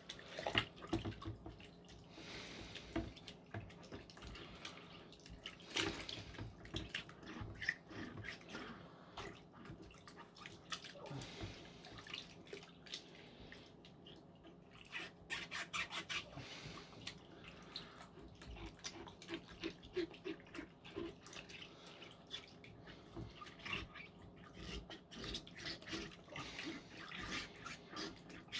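Water splashing and dripping in small irregular bursts as a Dyson V10 vacuum filter is worked in a bowl of hot water with a dissolved laundry tablet, to wash the dirt out of it.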